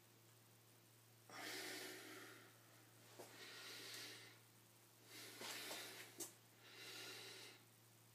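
A man breathing heavily with the strain of holding flexing poses: four loud breaths about a second and a half apart, with a brief click near the end and a faint steady low hum underneath.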